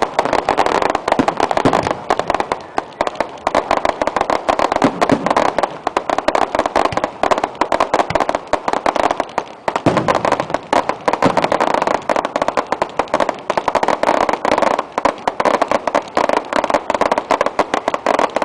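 Fireworks display: aerial shells bursting in a dense, unbroken run of bangs and rapid crackling pops, many a second, easing briefly about ten seconds in before building again.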